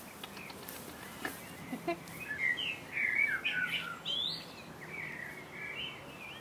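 A songbird singing: a quick jumble of short, rising and falling chirps that starts about two seconds in and lasts a few seconds.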